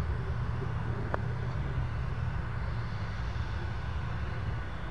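A single light click of a golf club striking the ball about a second in, over a steady low outdoor rumble.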